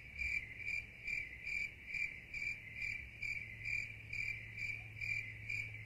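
Stock cricket-chirping sound effect, the cartoon 'crickets' gag for an awkward silence: a steady chirp repeating about twice a second over a low steady hum.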